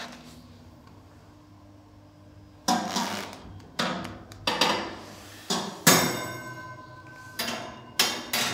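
Metal parts of a toaster oven knocking and clanking: a quiet start, then a string of sharp knocks about every second, some ringing briefly.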